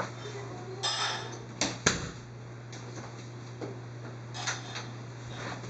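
Handling noise: a few light clicks and knocks of small hard objects being moved, the sharpest about two seconds in, over a steady low hum.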